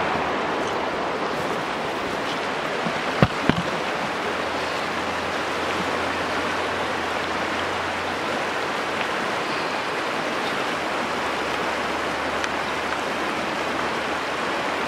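Steady rush of a river's flowing water through riffles, with two sharp knocks close together about three seconds in.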